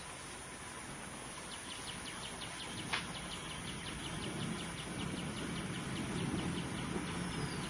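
Outdoor ambience: a rapid run of short, high ticking calls, about six a second, starts about a second and a half in. A single sharp click falls near three seconds, and a low engine rumble grows through the second half.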